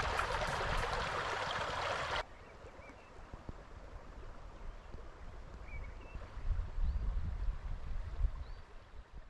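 Stream running, a steady rush of water that cuts off abruptly about two seconds in. A much quieter stretch follows, with faint water, a few short high chirps and some low rumbling.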